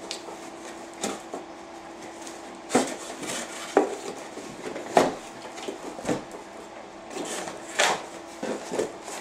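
A cardboard box being opened and its contents handled: scattered knocks, scrapes and rustles, with a few sharper knocks about three, four, five and eight seconds in.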